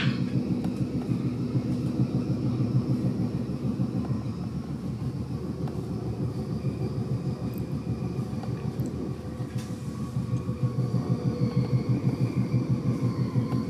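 Electric S-Bahn commuter train running along the track, heard from inside the carriage: a steady rumble of wheels on rails with a fast flutter and a faint higher whine over it.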